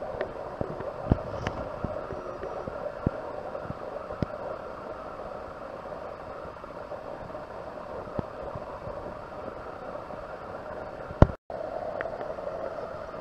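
Steady outdoor background hum and hiss with a few light clicks and taps. About eleven seconds in there is one sharp knock, and the sound cuts out for a moment.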